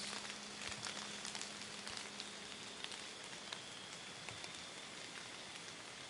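Steady rain falling, a soft even hiss with many scattered ticks of single drops.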